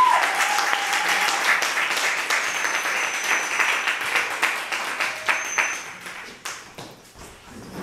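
Audience applauding at the end of a spoken-word poem, a dense patter of many hands clapping that dies away about six seconds in.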